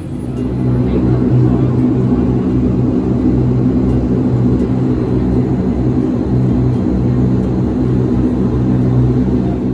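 Dash 8 Q400 turboprop's engines and six-blade propellers running, heard from inside the cabin as it moves on the ground: a loud, steady drone with a low propeller hum and a rush of noise.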